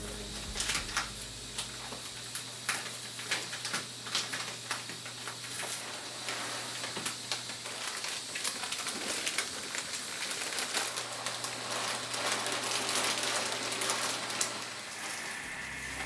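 Crinkling of a plastic bag and dry rice koji grains rustling as they are poured out and spread on a plastic sheet, a noisy hiss full of small crackles.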